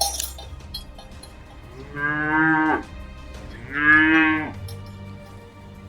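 Cattle mooing: two calls of under a second each, about two seconds in and again about four seconds in, the second one louder. A short sharp click right at the start.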